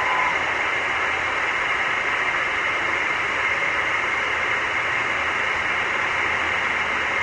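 A steady, even hiss with no distinct events, strongest in the upper-middle range, and a short faint whistle right at the start.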